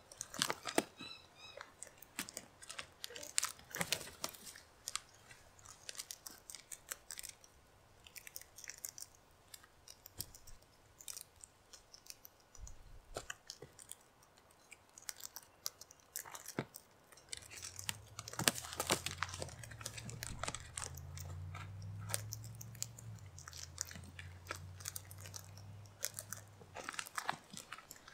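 Sulphur-crested cockatoos cracking seed in their beaks: irregular sharp crunches, sometimes several in quick succession, thinning out for a while in the middle. A low hum sits underneath through the later part.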